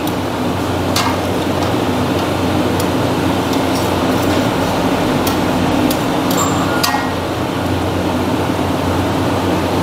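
Steel ladle stirring chicken pieces in watery gravy in a large steel kadai, clinking against the pan a few times: once about a second in and a cluster between five and seven seconds in. A loud, steady hum runs underneath.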